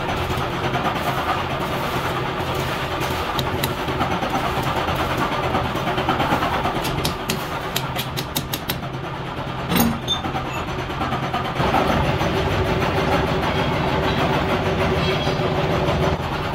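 Steady machinery running with a low hum, with a run of light clicks and one sharp metallic knock about ten seconds in as a steel gear blank on its shaft is fitted into a lathe's chuck.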